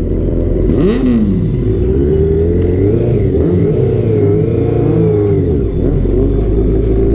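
Sport motorcycle engines running, revved up and down several times.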